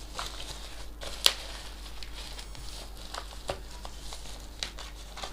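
Packaging being handled: faint rustling and crinkling with scattered light clicks, the sharpest about a second in.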